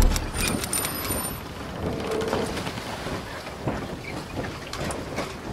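Logo intro sound effect: a low hit at the start, then a steady rushing noise with scattered clicks and a short high ringing tone in the first second.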